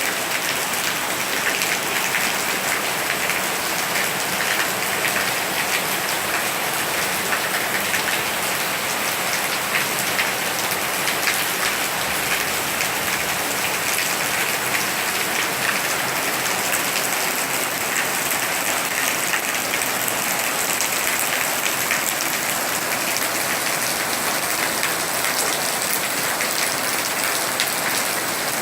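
Rain falling steadily: a dense, unbroken hiss of drops with many individual drop ticks.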